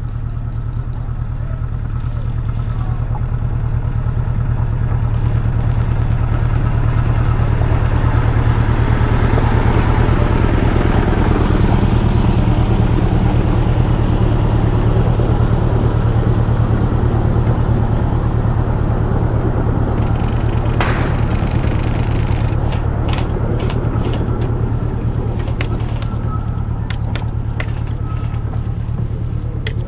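A motor vehicle's engine running steadily, swelling louder towards the middle and fading again, with a handful of sharp clicks in the last several seconds.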